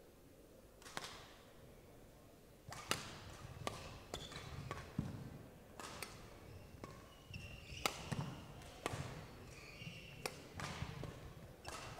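Badminton rally: rackets strike the shuttlecock about once a second, each a sharp crack, with squeaks of court shoes and footfalls between the hits.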